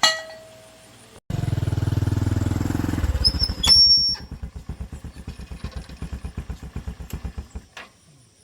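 A metal clink rings out at the start. About a second later a small 110cc motorbike engine starts abruptly and runs fast, then settles to an even idle beat of roughly ten to twelve pulses a second with a brief high squeal. The beat fades and the engine stops near the end.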